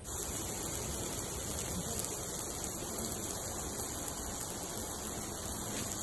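Meat and vegetables sizzling on a hot stone griddle slab over charcoal: a steady, dense hiss that cuts in suddenly.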